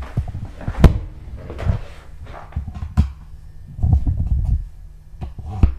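Footsteps thudding on carpeted wooden stairs, mixed with handling knocks on the handheld camera: a handful of uneven heavy thumps, the loudest about a second in and just before the end.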